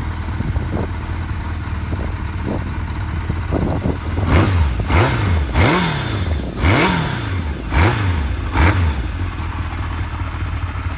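1986 Kawasaki GT750's air-cooled inline-four engine idling, then revved in about six short throttle blips starting about four seconds in, each rising and dropping back, before settling to a steady idle again.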